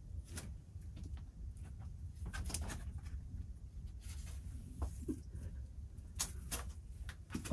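Faint scattered scuffs and taps of a climber moving onto a boulder, over a low steady rumble.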